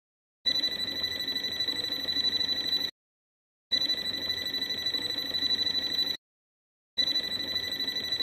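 HABOTEST HT122 pen-type multimeter's buzzer sounding its non-contact voltage alarm as the tip is held at a live outlet: a high-pitched electronic tone in three bursts of about two and a half seconds each, signalling that AC voltage is detected.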